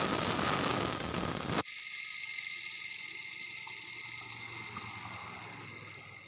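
A loud rushing hiss cuts off sharply about one and a half seconds in. A worn transmission bearing from an old Honda Revo engine then spins down on its own with a rough, dragging whir that slowly fades, the sign of a worn, loose bearing.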